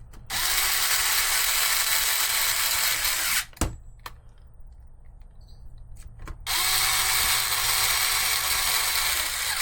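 Electric drill running in two steady bursts of about three seconds each, with a short pause and a click or two between them, driving screws while the rear shock mount is fitted.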